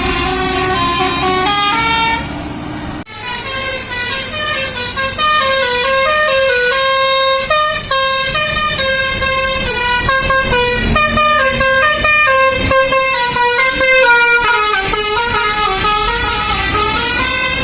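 Telolet bus horns, basuri-type multi-tone musical air horns, playing quick tunes of several notes sounding together that step up and down. One horn clip breaks off suddenly about three seconds in and another starts straight after.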